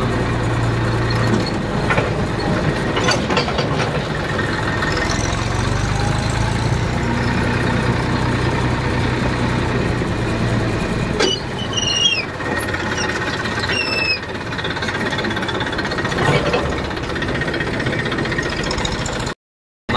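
Tractor diesel engine running as the tractor drives along, its steady low hum giving way about halfway through to a lighter engine note. A few short high squeaks come after that, and the sound cuts out for a moment near the end.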